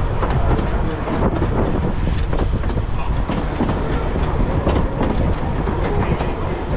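Electric tram running along its track: a steady rumble with frequent clattering knocks from the wheels on the rails.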